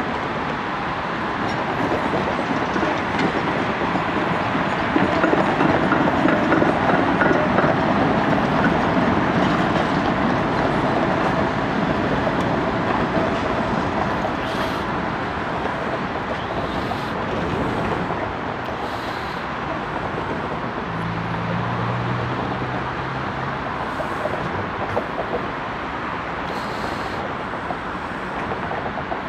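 Articulated tram rolling past on its rails with a steady rumble that grows loudest about six seconds in. A few light clicks follow, and a brief low tone sounds around twenty-one seconds.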